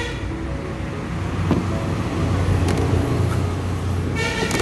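A motor vehicle's engine rumbling low, growing louder through the middle and easing off again, with a couple of light clicks.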